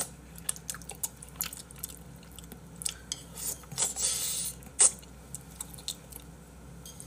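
Close-up eating sounds: chewing and wet mouth noises of spicy braised monkfish, with light clicks of chopsticks against bowls. A brief hiss comes about four seconds in, and a sharp click just before five seconds is the loudest sound.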